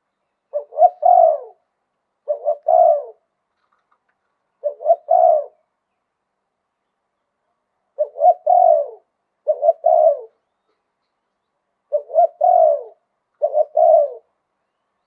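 Spotted dove cooing in the 'liw tan' calling style: seven short phrases, each two or three quick notes running into a longer coo, with a longer pause after the third phrase.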